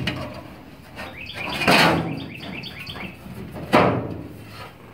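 Steel floor repair panel being slid and pressed into place in a 1966 Ford Bronco floor pan: metal scraping with a quick run of high chirping squeaks about two seconds in, then a sharp metallic knock near the end.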